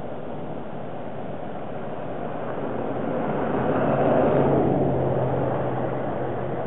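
A vehicle passing by: a rush of tyre and engine noise swells to its loudest a little past four seconds in and fades away, with a low engine hum coming in about three seconds in, over a steady background hiss.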